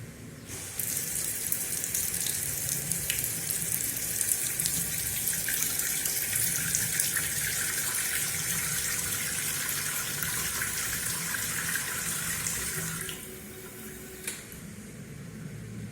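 Water pouring from a CNC farming machine's watering tool, fed by a diaphragm pump, to give a plant a measured 500 ml dose: a steady splashing hiss that starts about a second in and cuts off sharply about thirteen seconds in. A single short click follows a second later.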